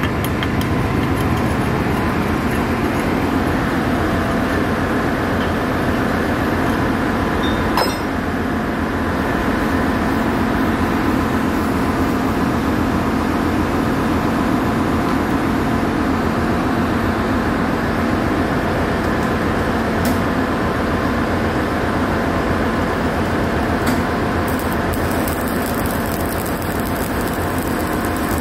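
Steady, loud drone of ship's machinery with a constant hum. About 25 seconds in, a high hiss joins it as arc welding on a steel pipe flange begins.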